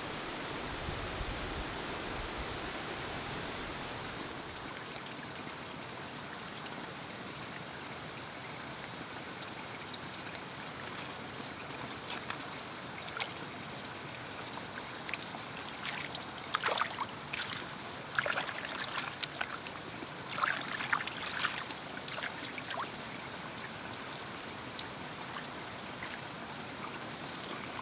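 Steady rush of flowing stream water, with a scatter of short, sharp sounds standing out over it in the middle stretch.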